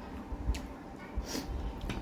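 Close-up eating sounds from a bowl of spicy instant noodles and momos: wet chewing and squishing, with a few small clicks and a short hiss about halfway through.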